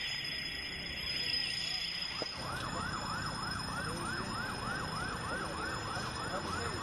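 Emergency vehicle siren in a fast yelp, sweeping up and down about three times a second; it starts about two seconds in, after a fainter, higher siren fades away.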